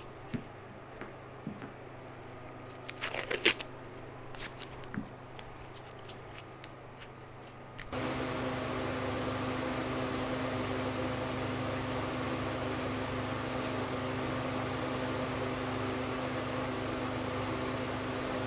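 Painter's tape pulled and torn off the roll in a quick cluster of rasping strokes about three seconds in, among small handling clicks. About eight seconds in, a steady machine hum with hiss starts abruptly and carries on.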